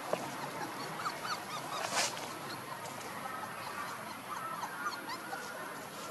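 Scattered short, high animal calls over a steady outdoor hiss, with a single sharp crackle about two seconds in.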